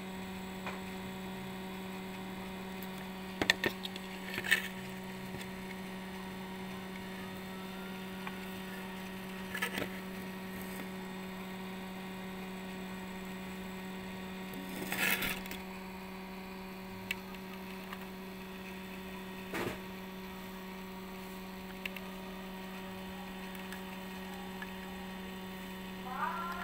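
A steady electrical hum, with a handful of brief clicks and taps scattered through it.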